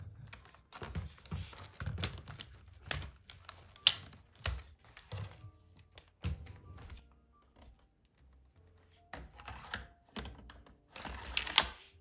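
Irregular plastic clicks, knocks and handling noise as the parts of a Samsung cordless stick vacuum are taken up and fitted together, with a sharper knock about four seconds in and a cluster of clicks near the end. Soft background music plays underneath.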